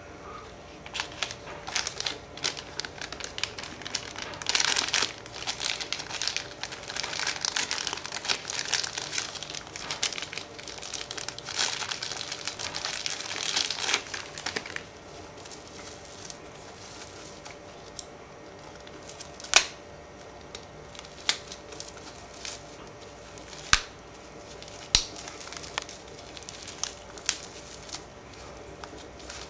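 Packing material being unwrapped by hand, crinkling and rustling densely for about fifteen seconds, then a few sharp clicks and taps.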